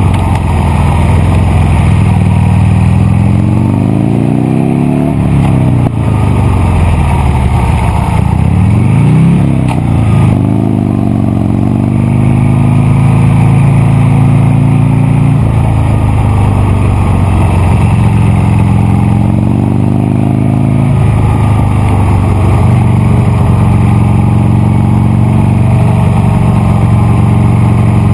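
Buell Lightning XB9 SX's air-cooled V-twin engine running under way, its pitch rising and falling with the throttle. It climbs for several seconds and then drops sharply about three quarters of the way through, then runs at a fairly steady pitch.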